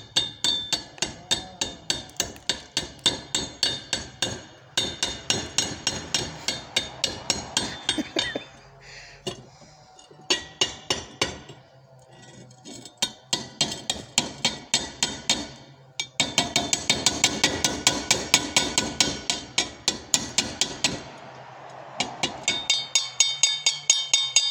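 Chipping hammer knocking slag off a fresh E6013 stick weld on thin mild steel square tubing: rapid ringing metal-on-metal strikes, about four or five a second, in several bursts with short pauses.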